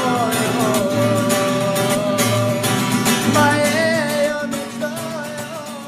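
Music from a slow Russian-language song: a wavering held melody over strummed guitar, fading out near the end.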